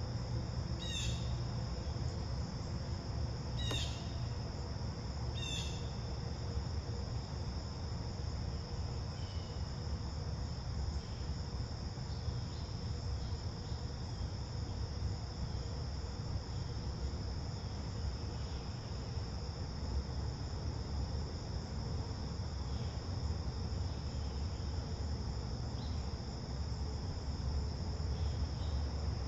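Steady high-pitched chorus of insects over a low rumble, with a few short bird chirps in the first six seconds and fainter scattered chirps later.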